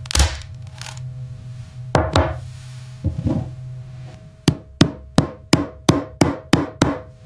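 Hammer striking: three single blows a second or more apart, then a quick run of about eight even taps, roughly three a second.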